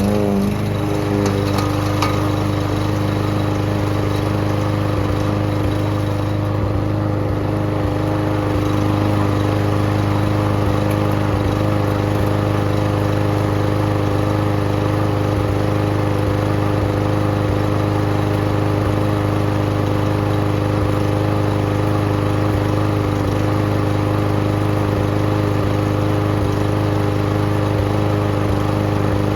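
Garden shredder's small engine running steadily at a constant speed while it grinds up potted plants and their soil, with a few sharp cracks from material going through in the first couple of seconds.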